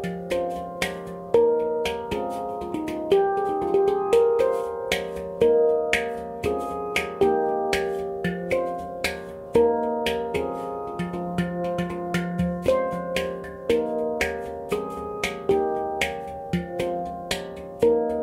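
Handpan tuned to F minor played by hand: a steady flow of struck notes, several a second, each ringing out as the next is hit.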